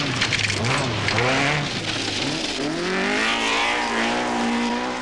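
Rally car engines revving hard on a gravel special stage, the pitch dipping and rising through gear changes over the sound of stones spraying from the tyres. About halfway through, a second car's engine climbs steadily in pitch under full acceleration and holds high near the end.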